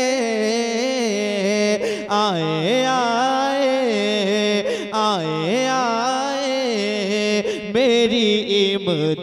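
A man's voice singing a naat through a public-address system, drawing out long held notes that waver and slide up and down between the words.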